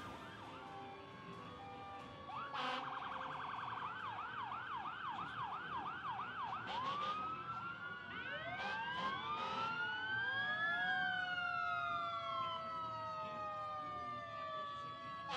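Emergency vehicle sirens: a fast yelp warble starts a couple of seconds in, then gives way to several sirens overlapping in slow rising and falling wails, with a few short horn blasts.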